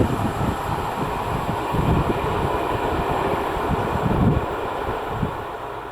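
Train running past on the rails, a steady rushing rumble with irregular low surges, fading away over the last second or so as it moves off. No horn sounds.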